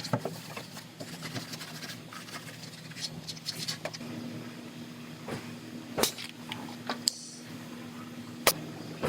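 Workshop handling noises: scattered light clicks and taps over a steady low hum, with two sharp knocks, one about six seconds in and a louder one near the end.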